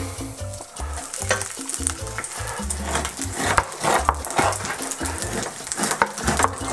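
Beef fat trimmings sizzling and crackling in olive oil in a hot frying pan.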